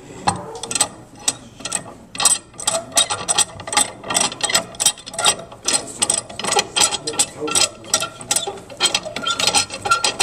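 Rapid, uneven metal clicking and rattling as a large C-clamp is handled and its screw worked against the miter saw table.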